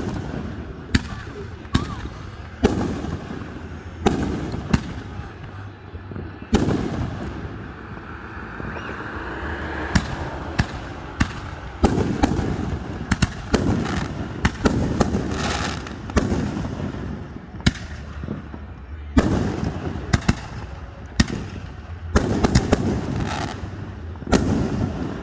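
Fireworks display going off: a long run of sharp bangs at irregular intervals, bunched into rapid clusters in places.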